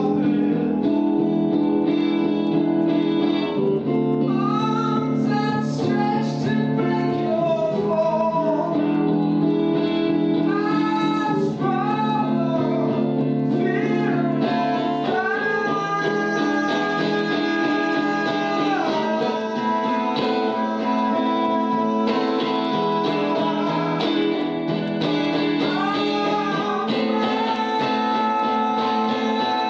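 A woman singing a slow song to acoustic guitar accompaniment, holding some long notes about halfway through and again near the end.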